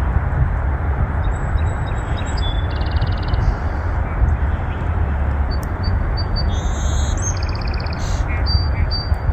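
Several birds calling in short high chirps and buzzy rapid trills, over a loud steady low rumble of background noise.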